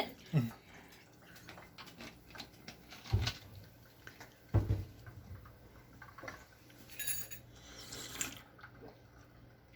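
Soda cans and cups handled while drinks are mixed: scattered light clicks and knocks, two dull thumps around the middle, and a short ringing clink near the end.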